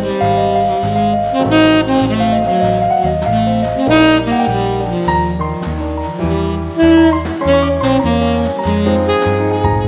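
Background jazz music with a saxophone lead over a bass line that steps from note to note about twice a second, with drums keeping time.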